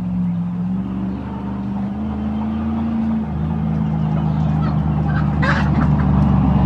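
An engine running steadily, growing gradually louder, its pitch stepping up and down a few times. A short, sharp sound cuts in about five and a half seconds in.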